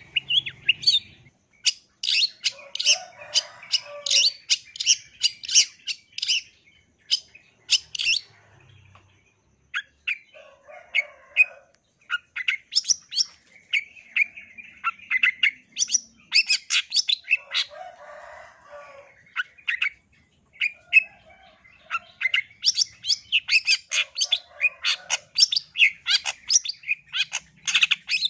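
Long-tailed shrike singing: rapid runs of sharp, high chirping notes in bouts of several seconds, broken by short pauses, with some rougher, lower notes mixed in.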